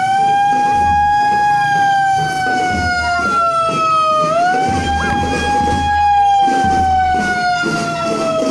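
Siren wailing: a single loud tone that slowly sinks in pitch for about four seconds, snaps back up about halfway through, and sinks again.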